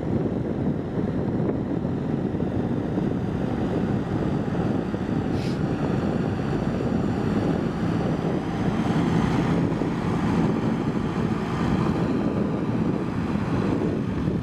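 JCB backhoe loader's diesel engine running steadily at work, with wind buffeting the microphone and a brief hiss about five seconds in.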